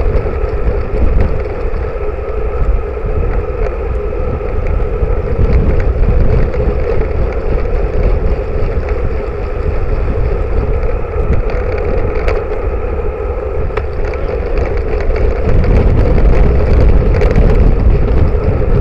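Wind rushing over the microphone of a bike-mounted camera, with the steady rumble of a road bike's tyres on tarmac and a constant drone underneath, growing a little louder near the end.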